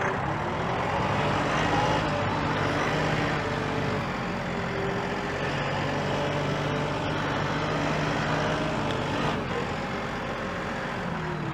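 A Massey Ferguson 1840M 40-horsepower hydrostatic compact tractor running steadily as it drives across the field pulling a three-point disc harrow. Its engine pitch shifts somewhat near the end.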